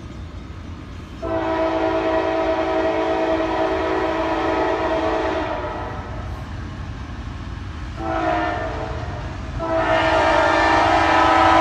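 Approaching Norfolk Southern freight locomotive's multi-chime air horn: a long blast, a short blast about eight seconds in, then another long blast near the end, over a low rumble. The pattern is the tail of the long-long-short-long grade-crossing signal.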